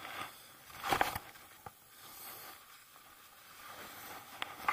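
Handling noise on a phone microphone: a gloved hand and jacket fabric rubbing and scuffing against it, with a brief scuffing burst about a second in and a single click shortly after.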